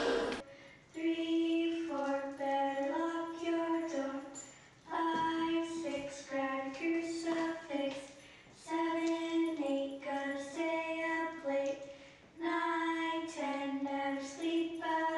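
A high voice singing a slow melody, four similar phrases of a few seconds each with short pauses between, with little or no accompaniment beneath it.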